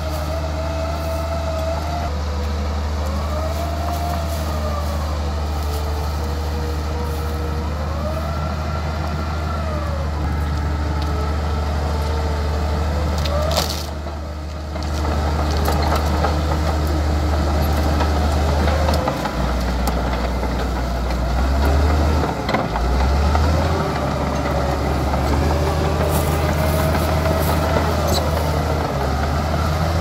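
Crawler bulldozer's diesel engine running under load with a steady low drone, overlaid by a whine that rises and falls every two to three seconds as the machine works. The sound briefly dips about halfway through.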